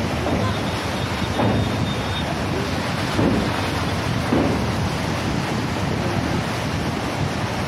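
Steady wind buffeting the microphone over the rush of rough sea water churning around the bridge piers, heard from a moving train.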